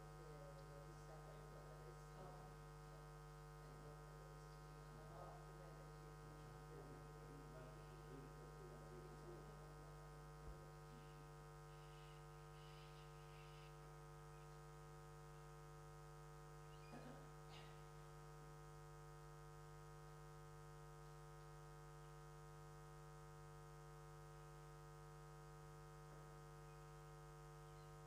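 Near silence: a faint, steady electrical mains hum with many evenly spaced overtones. Faint, indistinct sounds drift through it in the first ten seconds and again briefly around seventeen seconds in.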